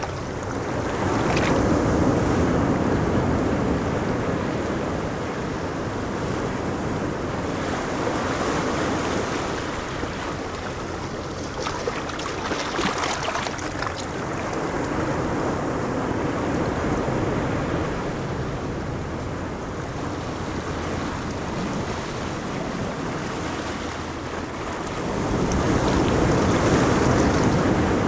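Ocean waves breaking on a beach: steady surf that swells and eases every few seconds as sets of waves come in, with a larger surge near the end. Wind rumbles on the microphone.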